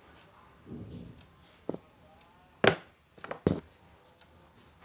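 A few sharp clicks and knocks of small hard objects being handled and set down, the loudest about halfway through and two more close together shortly after, with a faint voice in the background.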